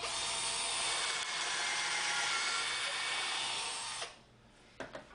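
Cordless drill boring a hole into the wooden Z-axis back plate, the bit cutting steadily for about four seconds and then stopping abruptly. A few light clicks follow near the end.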